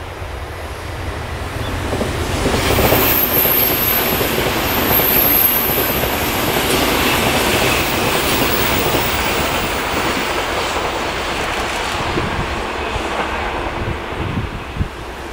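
JR Central 383 series tilting electric limited express train passing at speed, the rumble and clatter of its wheels on the rails building to a peak a few seconds in and then slowly fading as it runs away round the curve. A high-pitched squeal rides on top near the loudest part.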